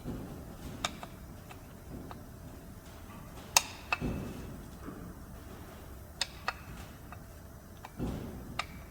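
Sharp metal clicks and light taps from work on a car door hinge as a tight hinge part is fitted, about five over several seconds with the loudest near the middle, and a couple of dull low knocks.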